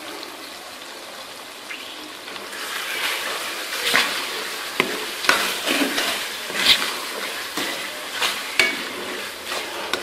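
Mutton keema and tomatoes sizzling in oil in a metal kadai. From about two and a half seconds in, a spoon stirs the mince and scrapes the pan, with a few sharp knocks against the metal.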